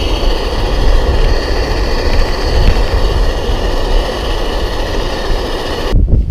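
Wind buffeting the camera microphone: a loud rushing noise with a heavy low rumble. The high hiss cuts off about six seconds in, leaving only the low gusts.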